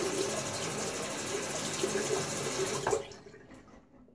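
Water running steadily from a bathroom sink tap into the basin, shut off about three seconds in, leaving a short trickle.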